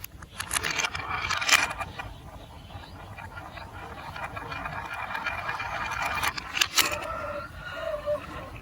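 Marble run building-block pieces and their packaging being handled: a steady scraping and rustling with a few sharp clicks.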